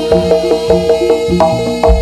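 Javanese gamelan music accompanying a barong dance: struck pitched metal percussion hammering a fast repeated figure, about four strokes a second, over drum strokes, with a deep drum stroke near the end.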